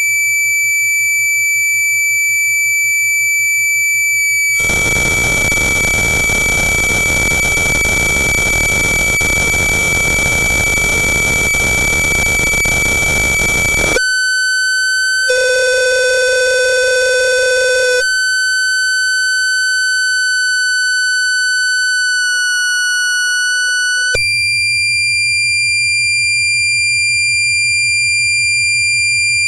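Electronic feedback and noise: a loud, steady high tone with overtones, joined by a dense wash of noise from about five seconds in. At about 14 seconds it drops abruptly to a lower tone, with a low hum added for a few seconds, and near 24 seconds it jumps back up to the high tone.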